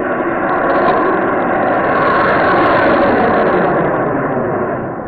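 A big 1.3G firework rocket's motor rushing as it launches and climbs, slowed to quarter speed so the whoosh is drawn out over several seconds. It swells to its loudest in the middle and fades near the end.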